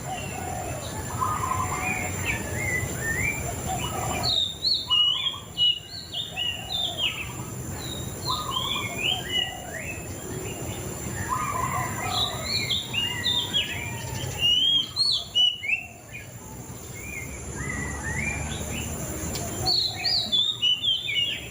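A murai cacing songbird singing a rapid string of short, high, sliding whistled notes and chirps, in loud bursts several seconds apart with quieter phrases between.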